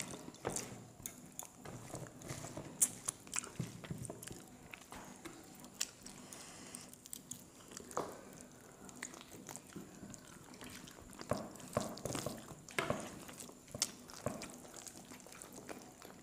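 Close-miked eating: chewing, with irregular small clicks and smacks as chicken curry and rice are mixed and eaten by hand.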